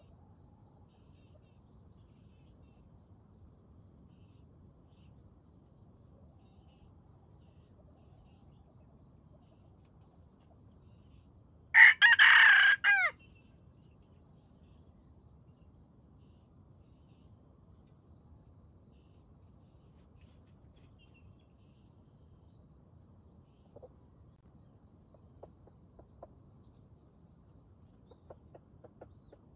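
Wild junglefowl rooster crowing once, a loud crow of about a second and a half, about twelve seconds in. Crickets chirp faintly throughout, with a few faint clucks near the end.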